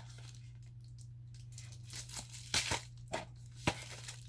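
Packaging crinkling and rustling as it is handled, in a few short bursts.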